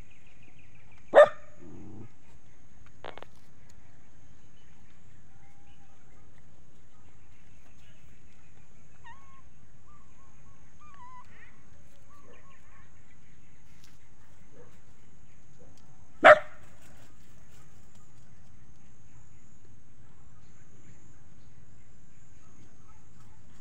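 A dog barks once, sharply, about a second in, and once more about fifteen seconds later, over a quiet steady background.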